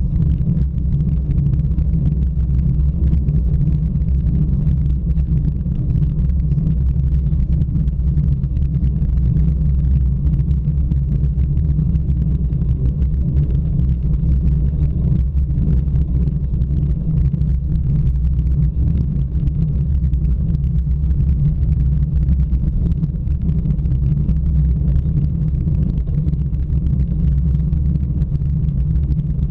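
Steady low rumble of road and wind noise picked up by a bicycle-mounted camera as the bike climbs slowly.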